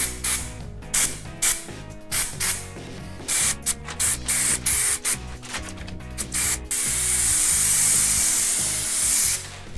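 Aerosol can of Raptor two-component textured coating spraying in a rapid series of short hissing bursts, then one long continuous spray of about two and a half seconds near the end, emptying the can. Background music plays underneath.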